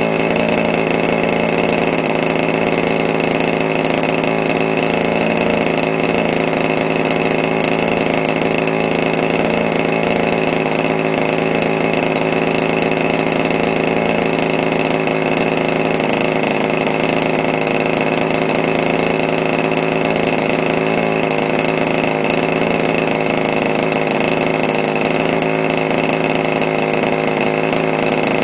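DLE 30 single-cylinder two-stroke gasoline engine running at a steady, unchanging speed, turning its propeller during engine break-in.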